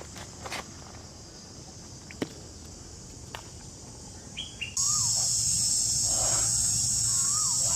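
Forest insects droning steadily on a high pitch, with a few faint clicks. About five seconds in the drone jumps louder and a couple of short rising-and-falling bird calls sound.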